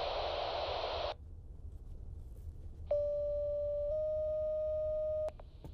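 A burst of radio static cutting off about a second in, then a fire dispatch alert over the radio: a steady tone for about a second followed by a slightly higher tone for about a second and a half, the two-tone page that calls out the fire department.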